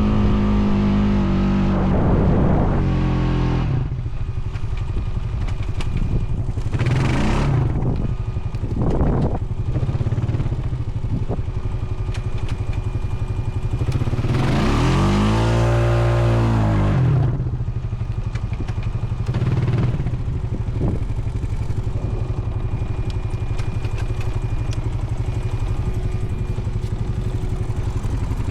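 Honda Foreman 520 ATV engine working under load while towing another ATV through sand, revving up and easing off several times, with the longest rise and fall about halfway through.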